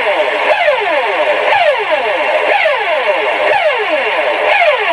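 Mexican seismic alert (SASMEX) siren sounding in a drill broadcast. It is a loud, repeating falling whoop, about one sweep a second, each sweep sliding from high to low in several tones at once. It warns that an earthquake is coming.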